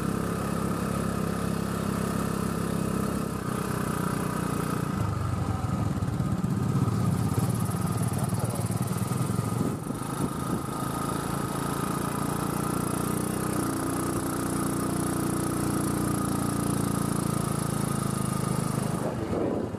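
Motorcycle engine running steadily while the bike is ridden along a road.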